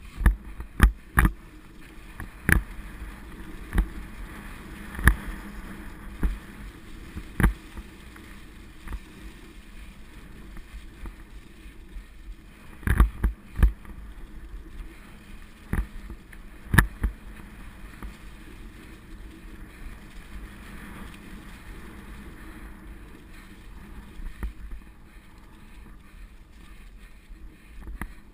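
Mountain bike rolling fast over a leaf-covered dirt singletrack: a steady rush of tyres and air, broken by sharp knocks and rattles as the bike hits bumps, several in the first few seconds and another cluster about halfway through, fewer near the end.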